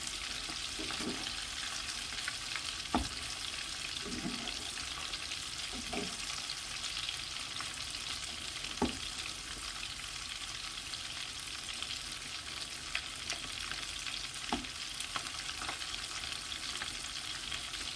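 Fish-and-potato croquettes deep-frying in hot oil: a steady sizzle, with a few light knocks now and then.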